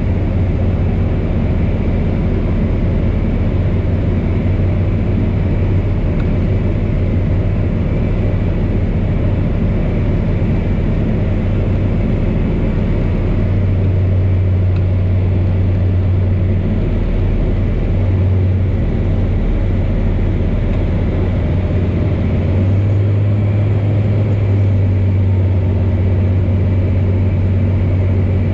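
Pipistrel Virus light aircraft's Rotax 912 engine and propeller droning steadily, heard inside the cockpit on final approach. The drone eases and wavers for a few seconds past the middle, then comes back firmly about three quarters of the way through as the power is set again near the runway.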